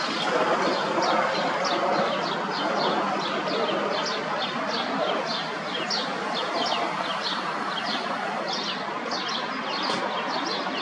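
Bombardier Challenger 650 business jet's twin turbofans running as it passes low overhead on approach with its gear down, a steady rush. Birds chirp over it, with short, high, falling chirps about three or four a second.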